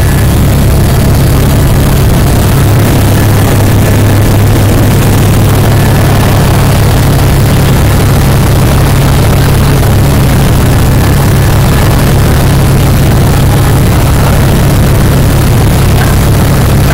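Helicopter in flight heard from inside the cabin: a loud, steady drone of rotor and engine with a strong low hum.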